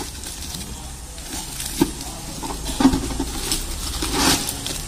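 A plastic electricity meter cover being handled: a couple of light clicks and knocks, about a second apart, and a brief rustle near the end, over a low rumble.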